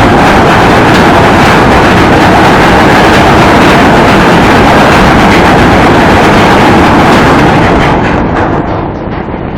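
Ship's anchor chain running through the windlass and hawse pipe in a loud, continuous clanking rattle, easing off about eight seconds in.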